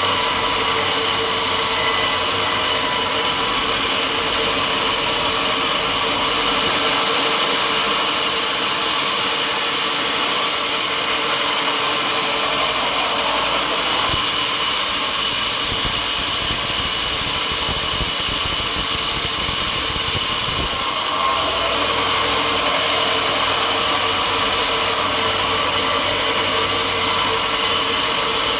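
Sawmill machinery running steadily: a constant mechanical din with a steady high whine over it.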